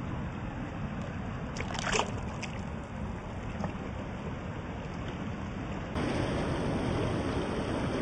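Swollen river in runoff, rushing steadily. A few short, sharp sounds come about two seconds in, and the rush turns suddenly louder about six seconds in.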